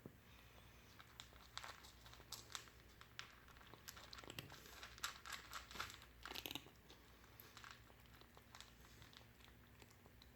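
A cat chewing dry cat food kibble: faint, irregular crunching clicks, thickest in the first two-thirds and thinning out toward the end.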